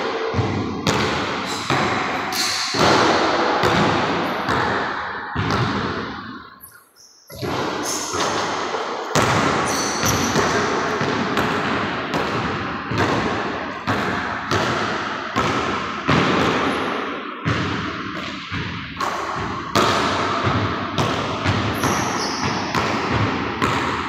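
Basketball bouncing and being dribbled on a hardwood gym floor: a run of thuds about every half second to a second, each echoing in the large hall, with a short lull about seven seconds in.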